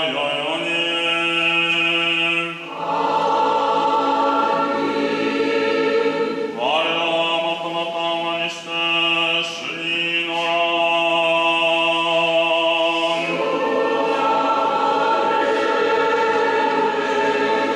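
A choir singing Orthodox liturgical chant in Japanese, unaccompanied, in long held chords that shift every few seconds.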